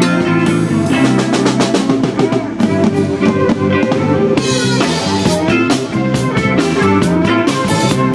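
Live band playing an instrumental passage: a bowed electric violin over electric guitar, bass guitar and a drum kit keeping a steady beat.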